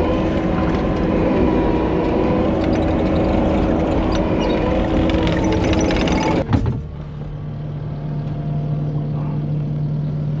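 Diesel engine of a Kubota compact machine running hard while pushing a loaded dump trailer. About six and a half seconds in there is a sharp knock, and the engine drops to a quieter, steady low idle.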